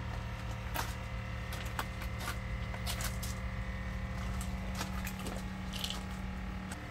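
A steady low machine hum with scattered light clicks. The hum's tone shifts a little before the end.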